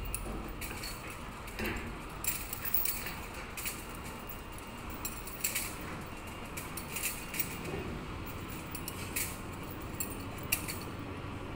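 Irregular light metallic clinks and clanks, about one a second, as steel rebar and crane lifting gear knock together, over a steady low rumble.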